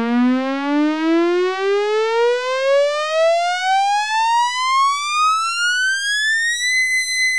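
An electronic tone sliding steadily upward in pitch over about seven seconds, then holding at a high pitch near the end. It is a cartoon sound effect for the hair-testing machine.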